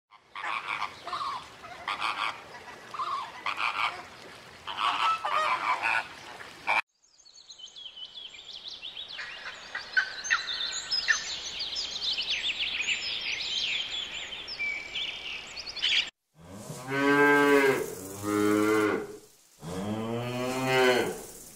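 A flock of flamingos honking and calling over one another, then fast, high chirping of small birds, then cattle mooing: three long, low moos.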